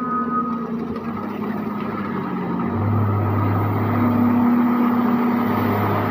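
JCB 455 wheel loader's six-cylinder common-rail diesel engine running as the loader drives, growing louder about three seconds in. A last reversing-alarm beep sounds in the first second.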